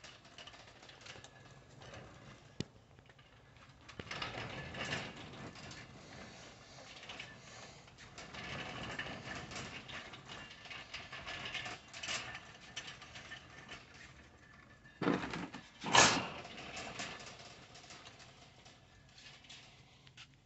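Shopping cart being pushed along, its wheels and basket rattling unevenly, with two sharp knocks about three-quarters of the way through, the second the loudest.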